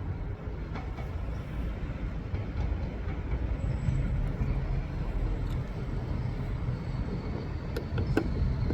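Train rumbling at a railway station: a steady low rumble that grows a little stronger about halfway through, with a few sharp clicks near the end.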